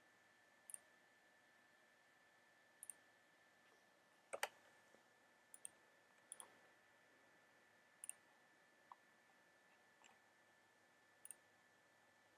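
Faint computer mouse clicks, about nine single clicks scattered irregularly, the loudest a little over four seconds in, over a faint steady whine.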